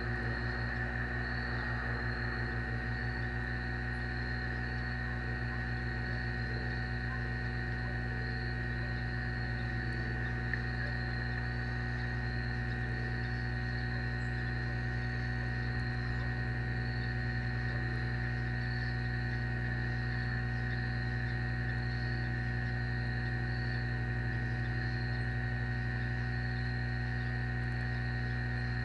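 Steady electrical hum from the nest camera's audio, made of several constant tones from low to high, with no change in level.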